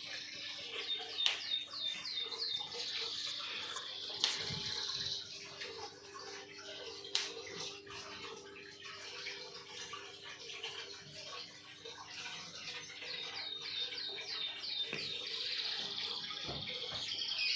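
A bird singing a phrase of about half a dozen quick, falling high notes that runs into a trill, heard twice: about a second in and again near 13 s. Steady rushing noise underneath and a few sharp clicks.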